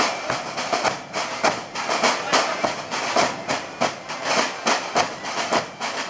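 A band of large rope-tensioned bass drums (Portuguese bombos) beaten with sticks in a fast, steady marching rhythm, about two strong beats a second with lighter strokes between.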